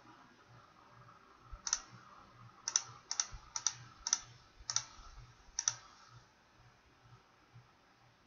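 Computer mouse button clicking seven times over about four seconds, each click a quick double tick of press and release, as letters are picked one by one on an on-screen keyboard.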